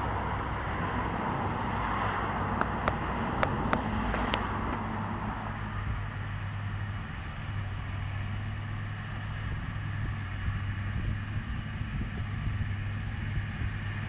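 Massey Ferguson tractor and McHale round baler working hay, a steady low engine hum with the baler running behind it. A few sharp clicks come about three to four seconds in.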